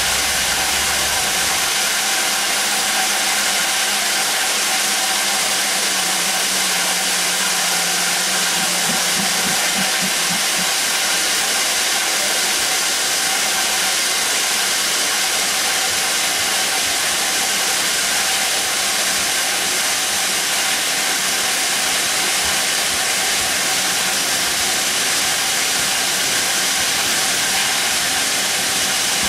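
Steady loud hiss of steam from a stationary GWR pannier tank steam locomotive.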